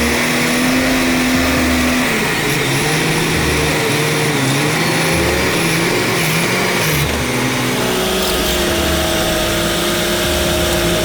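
Heavy truck engine running, its pitch shifting a few times.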